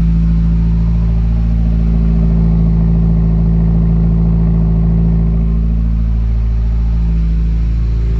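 2017 Subaru WRX's turbocharged flat-four idling steadily shortly after a cold start, settling a little lower about five and a half seconds in. The engine is being watched for a cylinder 3 misfire (code P0303) that shows only on cold start-up.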